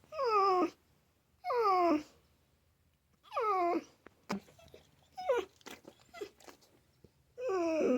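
A dog vocalizing in drawn-out, whining calls that fall in pitch, mimicking spoken words: three long calls, then a run of short yips, then another long call near the end.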